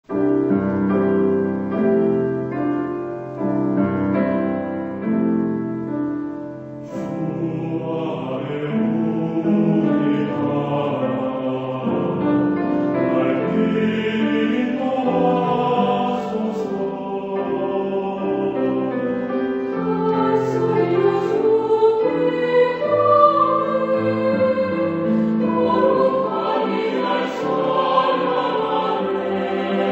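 Slow choral anthem with piano: a piano introduction of gentle chords, then voices enter about seven seconds in, lower voices first and higher voices joining, singing in Korean over the piano accompaniment.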